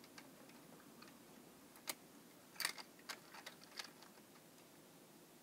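Several faint clicks and taps of die-cast toy cars being handled on a plastic toy car-hauler truck, starting about two seconds in, against near silence.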